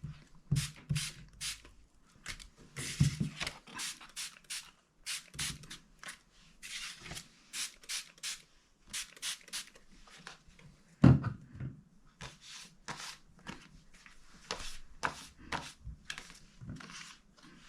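Hand spray bottle misting water onto pieces of card stock in a run of short hissing sprays, mixed with handling of the card and one sharp knock about eleven seconds in.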